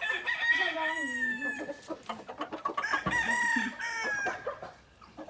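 Rooster crowing twice, two long calls that each hold and then fall in pitch, a second or so apart.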